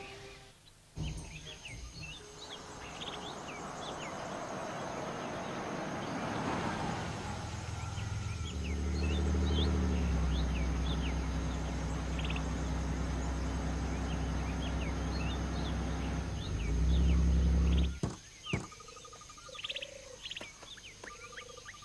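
Jeep Grand Cherokee SUV driving up over grass, then running at a steady low hum. The engine sound rises near the end and stops abruptly. Birds chirp throughout.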